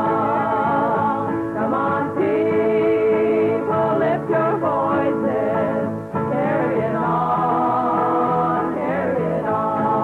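Music with singing, a folk-style song.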